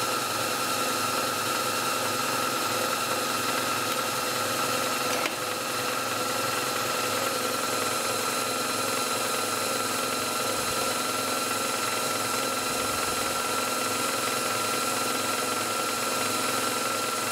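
Myford lathe running steadily under its motor and belt drive, the spindle and chuck turning at about 2,130 rpm, with a steady high-pitched whine over the machine's hum.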